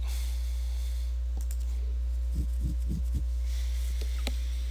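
Steady low electrical hum, like mains hum picked up by the recording microphone, with about four soft knocks a little past halfway and a few faint clicks.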